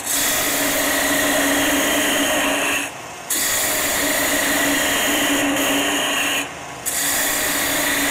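A turning gouge cutting into maple spinning on a wood lathe, taking off waste: a steady hiss of shavings over a hum. It breaks off briefly about three seconds in and again near six and a half seconds, as the tool comes off the wood.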